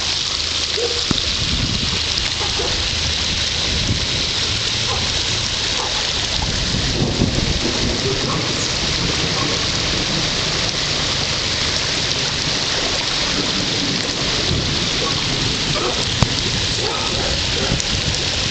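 Muddy flash-flood runoff rushing steadily over a gravel driveway and grass, a continuous hiss with a low rumble under it: storm runoff from about 45 minutes of hard rain.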